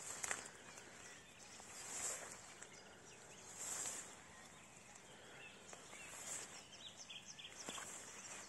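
Footsteps swishing through tall meadow grass: a soft brushing rush about every one and a half to two seconds. Birds chirp in the background, mostly in the second half.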